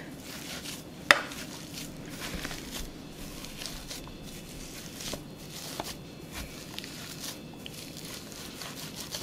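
Metal potato masher working boiled potatoes in a skillet: irregular soft mashing strokes with light scrapes and knocks against the pan, and one sharper knock about a second in.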